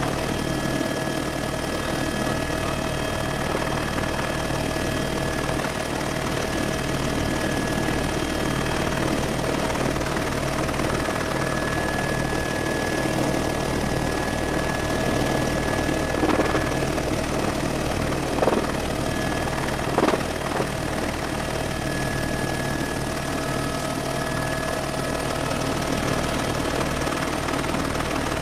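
Helicopter in flight heard from inside the cabin: a steady rotor and engine drone with constant high tones over it, and three brief knocks about two-thirds of the way through.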